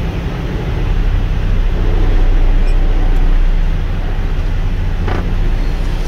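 Low, steady rumble of a running vehicle engine, swelling about a second in and easing off again about four seconds in, with one short knock about five seconds in.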